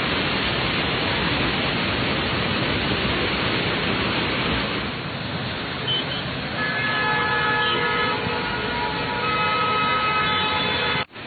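Loud, steady rushing of floodwater or heavy rain. From about six seconds in, car horns sound over it in long held tones, several pitches overlapping, for about four seconds.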